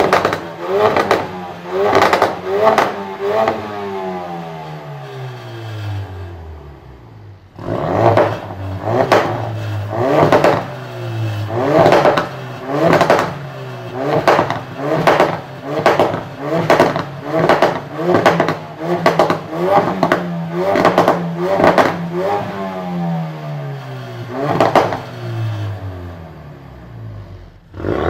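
2016 Ford Focus RS's turbocharged 2.3-litre four-cylinder being revved through its exhaust in quick blips, about one a second. Between runs of blips the revs twice fall away in long downward glides before the next blip.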